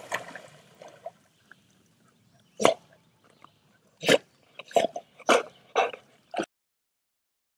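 A dog barking: about six short, separate barks over some four seconds, then the sound cuts off abruptly.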